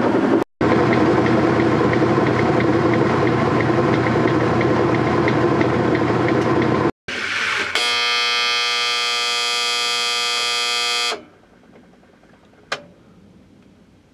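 Whirlpool direct-drive top-load washer running in its spin, a loud steady whir. After a cut, a steady buzz sounds for about three seconds, typical of the washer's end-of-cycle signal, then stops suddenly, leaving quiet with one click.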